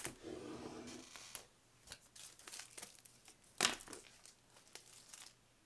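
Plastic wrapping being torn and crinkled off a laptop's cardboard box, with scattered rustles and one sharper crackle about two-thirds of the way through.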